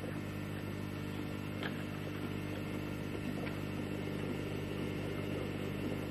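A steady low hum made of several fixed tones, with two faint light clicks, one just under two seconds in and one about halfway through.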